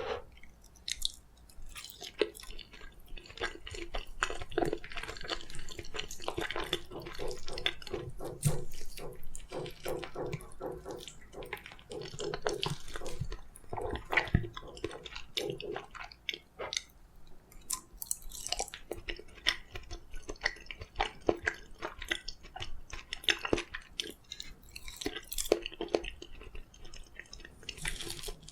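Close-miked chewing of soft steamed kabocha (sweet pumpkin), with many small irregular clicks and mouth sounds.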